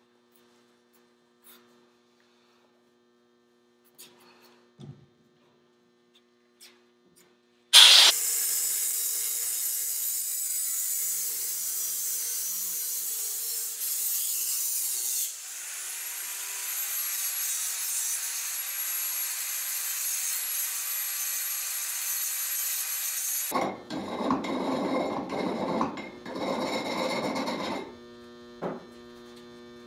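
Power grinder cutting through a 1-5/16-inch metal shower rod, starting suddenly about eight seconds in with a loud, steady grinding hiss and a high whine that shifts tone around fifteen seconds in. Some eight seconds later it turns to a rougher, lower grinding and then stops, leaving a faint mains hum.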